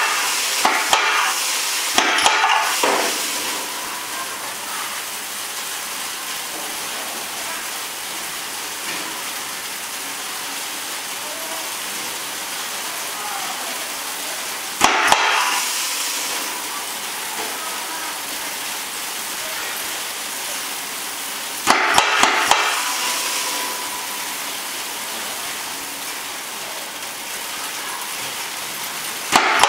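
Gravity-fall metal separator with plastic granules pouring through it in a steady hiss. About five times the hiss is broken by a quick cluster of clicks as the pneumatic reject flap fires, each followed by a louder rush that fades over a second or two, the sign that the detector has found metal and is diverting those granules to the reject bin.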